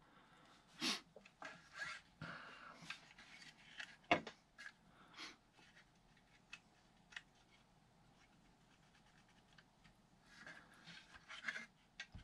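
Faint handling noise of a 3D-printed PLA plastic airsoft folding frame being turned over in the hands: scattered light clicks and rubs, with a sharper click about four seconds in and a quiet stretch before a few more small clicks near the end.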